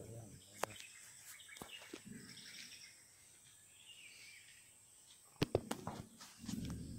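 Quiet outdoor ambience with faint bird chirps and a steady high whine. A few sharp clicks are scattered through it, the loudest a quick cluster about five and a half seconds in, and a low murmur starts near the end.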